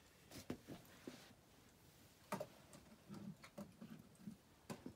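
Faint scattered taps and clicks of small toys being picked up and handled, about a dozen light knocks spread unevenly.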